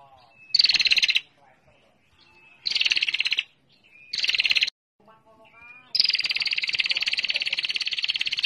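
Female prinia (prenjak) giving its rapid ticking 'ngetir' trill, played as a bird-catcher's lure call: three short trills of under a second each, then a long unbroken trill from about six seconds in.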